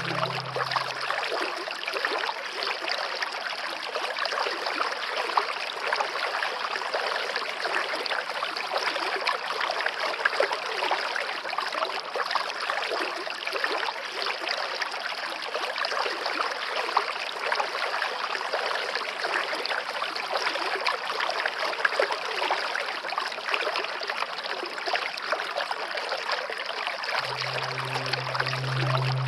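Waterfall: a steady, even rush of falling and splashing water. Low music notes fade out about a second in and come back near the end.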